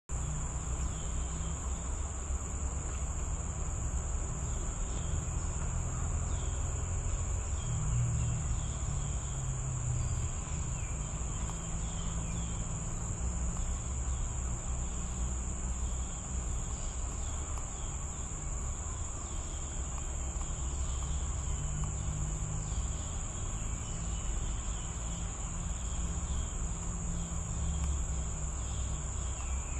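Steady, unbroken high-pitched drone of forest insects over a low rumble, with faint short chirps here and there.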